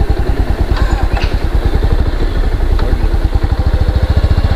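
Motorcycle engine running steadily at low revs, its exhaust pulses heard as an even, rapid thudding.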